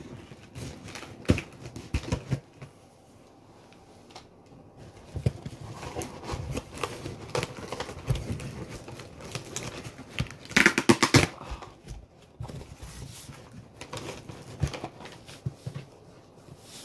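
Hands handling and picking at a heavily taped package: scattered clicks, scrapes and rustles, with a louder burst of rough scratching noise lasting about a second, some ten seconds in.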